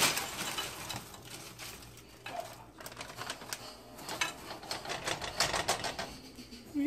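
Light clattering and rustling of broccoli florets being put into a small pot by hand, in irregular quick clicks.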